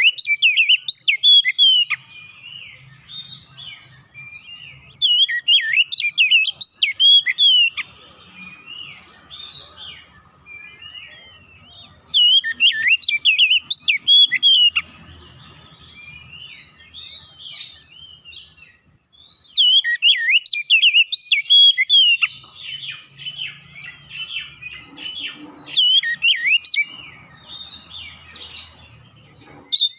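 A male Oriental magpie-robin (kacer) sings in a cage. It gives about five loud bursts of rapid, varied whistled and warbling phrases, each two to three seconds long, every five to seven seconds, with softer scattered notes in between.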